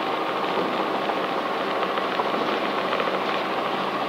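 Cabin noise of a Robinson R44 Raven II helicopter flying a slow landing approach: a steady dense rush from its six-cylinder Lycoming engine and rotors, with faint steady tones running through it.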